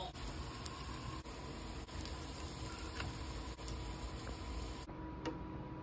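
Faint sizzling from a nonstick frying pan as butter melts and a waffle fries in it, with a few small pops.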